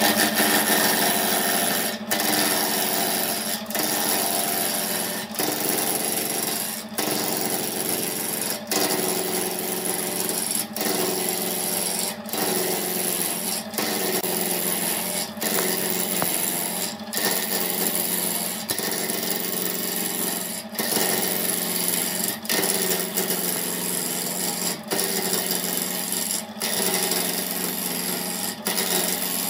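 A turning tool cutting a spinning laminated wood blank on a wood lathe, over the lathe motor's steady hum. The cutting breaks off briefly at regular intervals, about every one and a half to two seconds.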